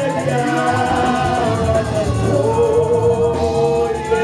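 Church congregation singing a gospel chorus together, drawing out long held notes over a steady low bass line.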